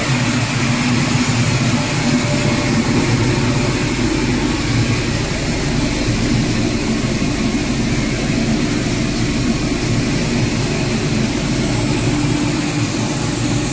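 PVC pulverizer (plastic milling machine) running steadily while grinding PVC profile into fine powder, together with the vibrating sieve at its outlet. The noise is a loud, even mechanical hum with a hiss over it.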